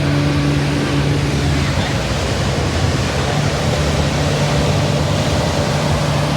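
A boat's engine running steadily over the constant wash of surf.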